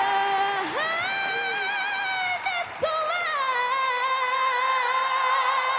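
A female singer belting a high note around C sharp, right at the upper side of her vocal break, in a blended mixed voice rather than flipping into head voice. After a couple of short phrases she slides up, about three seconds in, into one long held note.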